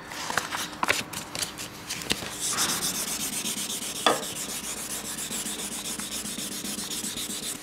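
2000-grit wet sandpaper on a sanding block rubbed back and forth over the wet clear coat of a Vespa's bodywork, levelling a paint run in the lacquer. After a few light clicks, quick, steady strokes set in about two seconds in.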